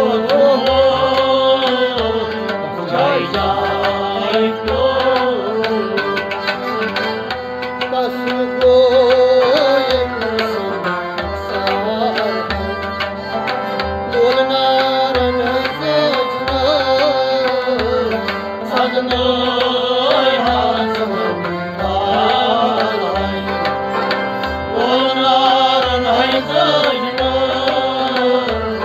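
Kashmiri Sufi devotional music: a harmonium carries a wavering melody over a hand drum beating a steady rhythm, with a voice singing along.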